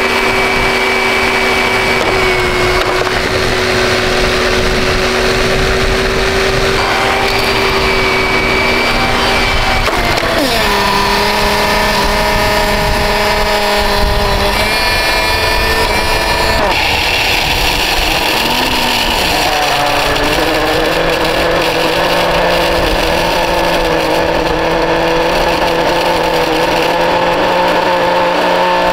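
Dirt Devil Ultra MVP vacuum cleaner motor running loudly with a steady whine, its pitch dropping twice, about a third and two-thirds of the way in, as the motor slows.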